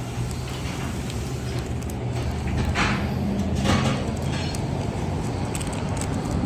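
Tire-shop machinery: a steady low mechanical hum, with two short hisses of compressed air about three and four seconds in.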